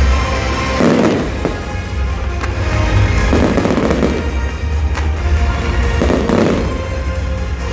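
Fireworks display: shells bursting with several sharp bangs and crackling rushes, over music with a steady bass.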